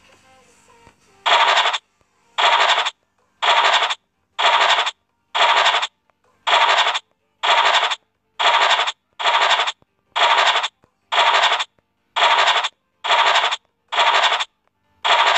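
Scratch sound effect of an online scratch-card game: a short burst of scratchy noise repeating about once a second as each star on the card is uncovered, starting about a second in.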